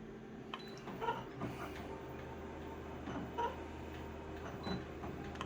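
Photocopier being worked: scattered light clicks and taps, and a low steady hum that starts about a second and a half in.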